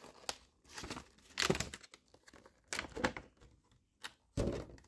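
A Pokémon card collection box being opened by hand: a series of short, irregular rustles, scrapes and tearing sounds from its packaging.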